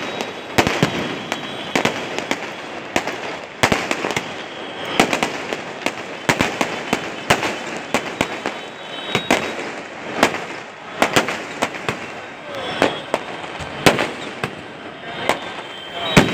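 Fireworks going off: irregular sharp bangs and crackles, sometimes several a second, over a continuous background of crackle and voices.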